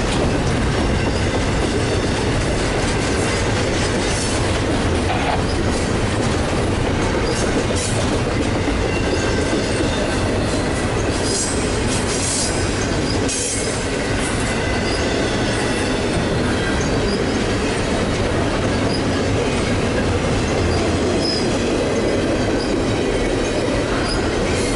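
Double-stack intermodal container train rolling past at close range: a steady rumble and clatter of steel wheels on the rails, with a few brief high-pitched wheel squeals around the middle.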